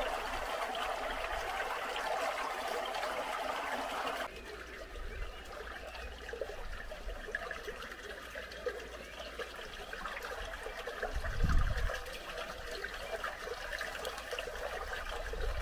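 Running water trickling steadily, as from a stream. About four seconds in it abruptly becomes quieter and duller, and a brief low rumble comes about eleven seconds in.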